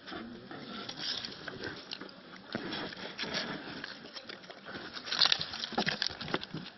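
Sloth bear moving right over the phone: close snuffling breaths and its claws and pads scraping and tapping on the road surface, with a burst of sharp knocks about five seconds in.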